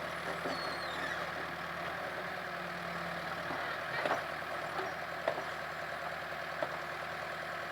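Caterpillar 428C backhoe loader's diesel engine running steadily at low revs, with a few short knocks.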